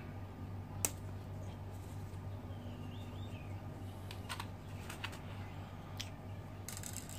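Small handling sounds from PTFE plumber's tape being wrapped and handled: a sharp click about a second in, a few softer clicks later and a short rustle near the end. A bird chirps a quick run of falling calls in the middle, over a steady low hum.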